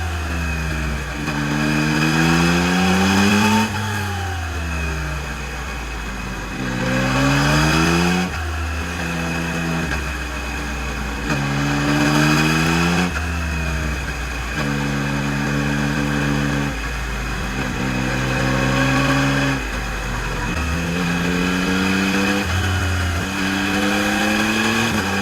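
Yamaha MT-09 SP inline three-cylinder engine through its stock exhaust, pulling up through the gears: the pitch rises, drops sharply at each shift and climbs again several times, with a few stretches held at a steady pitch.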